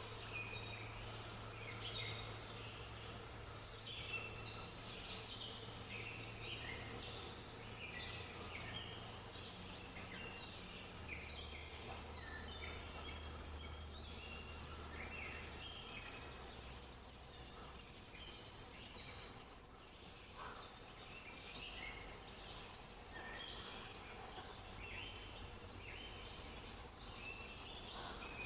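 Small birds chirping and twittering continuously, many short calls overlapping, over a low steady hum.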